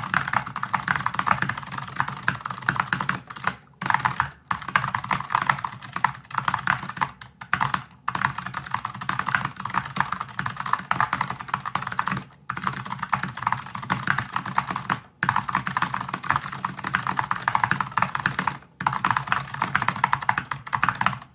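Fast continuous typing on a Razer DeathStalker V2 low-profile keyboard with clicky switches and Berry-profile keycaps: a dense clatter of key clicks. It breaks off in a handful of brief pauses and stops abruptly at the end.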